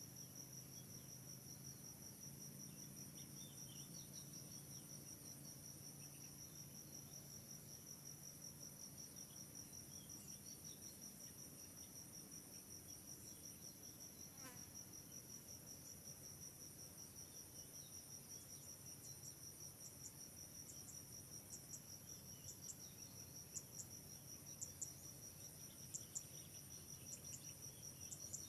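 Insects chirping in a steady, high, fast-pulsing trill, with faint light ticks joining in the last third.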